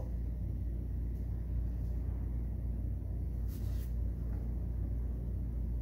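Steady low rumble of background room noise, with one brief soft hiss a little past halfway.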